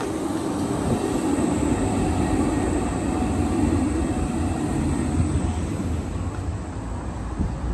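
Škoda 15T low-floor electric tram passing close by, a steady running noise of wheels on rails that swells in the first second and eases off toward the end.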